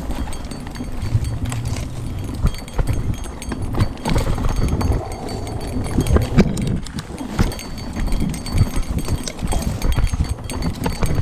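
Mountain bike riding down a rocky dirt trail: tyres rolling over stones and the bike rattling, with many irregular knocks over a steady low rumble.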